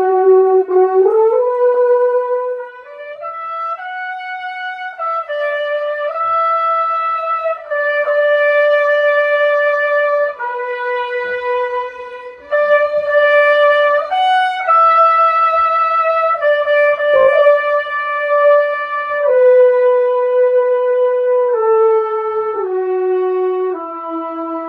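Brass playing one slow melodic line of held notes, rising at first and settling onto a lower held note near the end.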